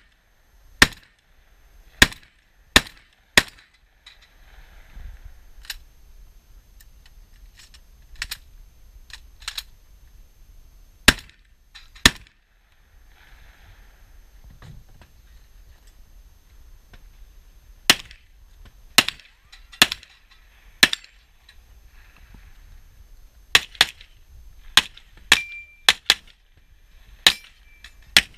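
Gunshots fired one at a time and in quick pairs, about twenty in irregular strings, with a pause of about six seconds midway.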